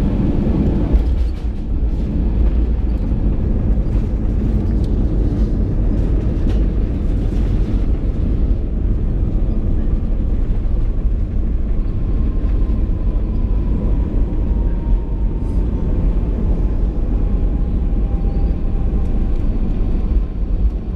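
Steady low rumble of an Airbus A320's engines and airflow heard inside the passenger cabin, with a faint falling whine in the second half.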